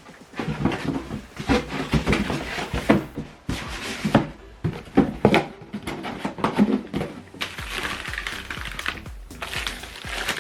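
Background music, with irregular knocks and clicks from the speaker's packaging being handled during unboxing.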